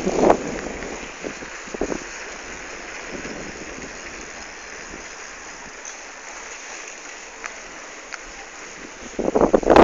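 Wind rushing over the microphone of a camera on a moving bicycle, a steady rush with a loud burst of buffeting near the end.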